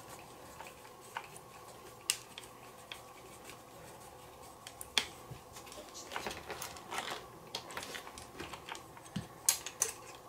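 Sparse light clicks and taps of a hex screwdriver and plastic parts on a 1/8 electric RC buggy's chassis as screws are worked loose, with some soft scraping in the middle and a few sharper clicks near the end.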